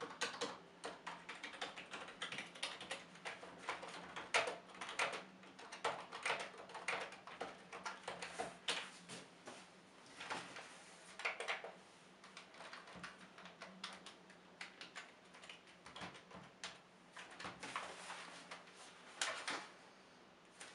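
Typing on a Microsoft Natural Ergonomic Keyboard 4000: key clicks in quick, uneven runs, thinning out in the second half.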